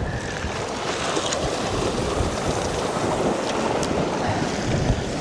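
Gale-force wind gusting and buffeting the microphone, rumbling in the low end, with sea surf washing on the rocky shore beneath it.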